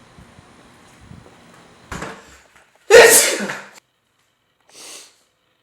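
A man sneezing once, loudly, about three seconds in, after a sharp intake of breath a second before; a shorter, fainter breath follows near the end. The sneeze is part of a sneezing fit brought on by bad seasonal allergies.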